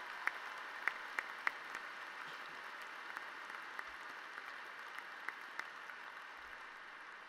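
Large audience applauding: a steady wash of clapping with a few sharp, closer claps standing out, slowly dying down toward the end.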